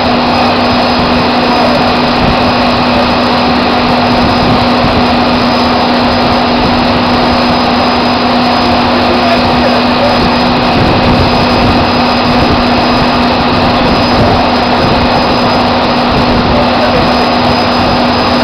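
Loud, steady drone of drilling-rig machinery on the rig floor: a constant hum-tone over an even roar that does not change.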